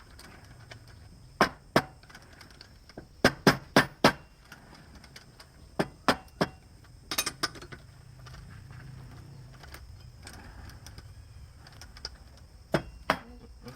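Sharp knocks in short clusters of two to four, about fourteen in all, with quieter stretches between.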